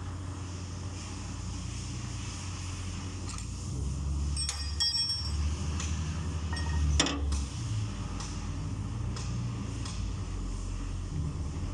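Metal parts and tools clinking against each other during work on a skid loader's travel motor: a few ringing clinks about five seconds in and a sharp click about two seconds later, over a steady low machine hum.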